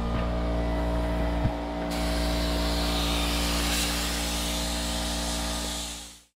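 Compressed-air spray gun hissing steadily as it sprays paint onto the hull, over a steady low hum; the hiss comes in about two seconds in, after a short click, and everything fades out near the end.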